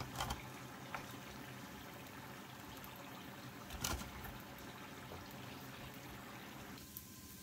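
Chopsticks handling fried spring rolls in a stainless mesh strainer: a few light taps at the start and another about four seconds in, over a faint steady hiss.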